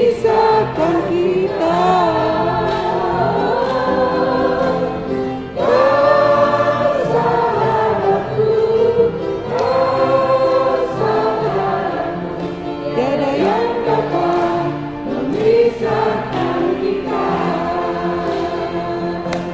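A church congregation singing a worship song together in phrases, over steady instrumental accompaniment, with a short break about five seconds in.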